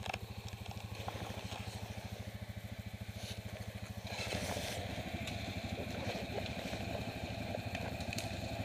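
Quad bike (ATV) engine running at low revs with a steady throb as the quad creeps down a steep slope. It gets louder and rougher about four seconds in.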